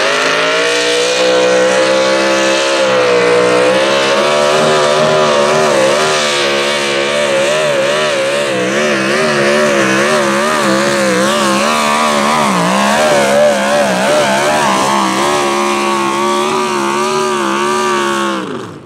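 The small-block V8 engine of a mini modified pulling tractor runs at full throttle as it pulls the sled. Its pitch wavers up and down as the revs rise and fall under load, then falls away sharply near the end as the pull ends.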